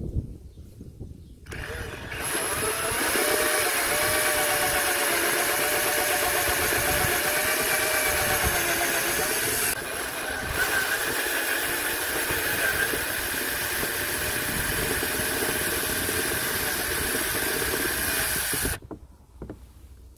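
Cordless drill with a step drill bit cutting a 28 mm hole through the plastic boot side trim panel. The motor whine wavers as the bit bites, dips briefly about halfway through, and stops a little before the end.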